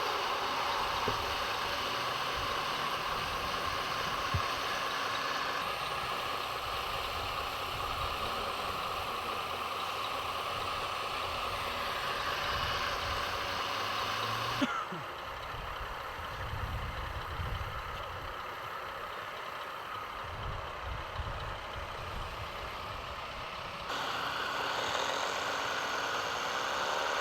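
Radio-controlled model vehicles running, a steady mechanical whine of small motors and gears. The sound shifts abruptly three times, about five, fifteen and twenty-four seconds in.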